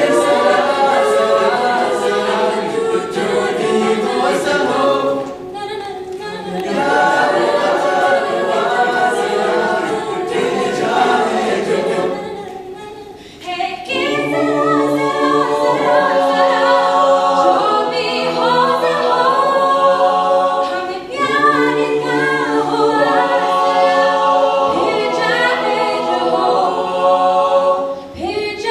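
A mixed-voice a cappella group singing in harmony, a woman's lead voice over the chorus, with a brief lull about halfway through before the voices come back in.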